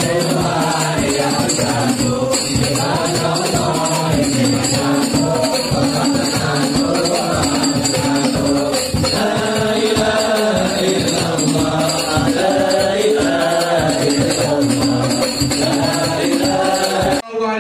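Group singing of a devotional song over frame drums and jingling percussion at a steady beat. It cuts off suddenly just before the end.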